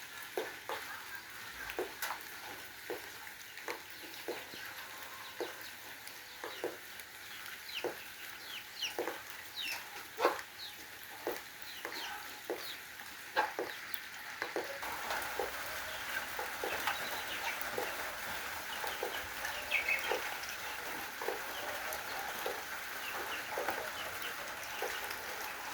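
A flock of chickens clucking: many short, separate clucks, then a denser, steadier chorus of clucking from about halfway through.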